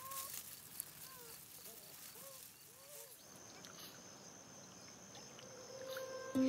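Beaver kits whining: several faint, short rising-and-falling calls in the first three seconds, then only a faint steady hiss with a thin high tone.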